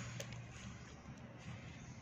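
Faint pen strokes and handling on notebook paper, with one light tap about a quarter of a second in.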